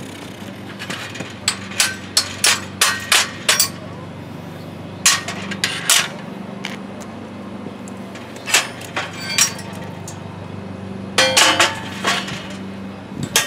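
Sharp metallic taps and clanks as steel axle-truss plates are handled and fitted on a steel-grate welding table. A run of about six quick strikes comes about a second and a half in, and a dense cluster comes near the end, over a steady low hum.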